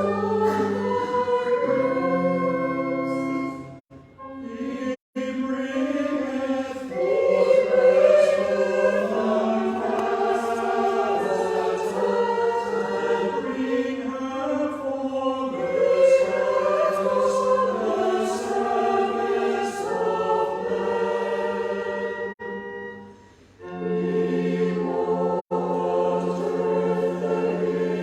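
Church choir singing a harvest anthem, the sound of several voices in harmony. The singing breaks off briefly twice, about four seconds in and again after about twenty-three seconds.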